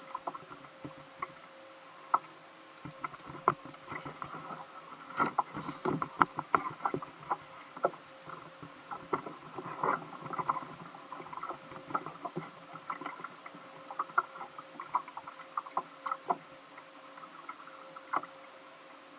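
Irregular clicks and knocks from a kayak and a spinning rod and reel being worked against a hooked fish, the angler pumping the rod and cranking the reel, with water lapping at the hull. The knocks come thickest in the middle stretch.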